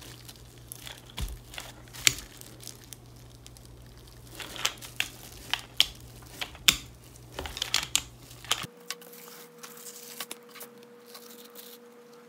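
Plastic film crinkling and crackling in scattered sharp clicks as a small hand roller presses stone powder clay flat on it. The clicks grow fainter and sparser in the last few seconds.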